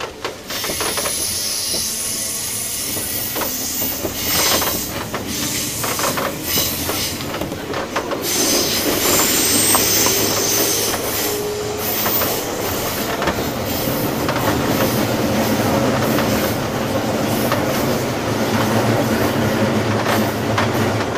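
Onboard running sound of a JR East 201-series thyristor-chopper electric train under way: a steady rumble and hiss of wheels on rail with clicks from rail joints and thin high squealing tones from the wheels.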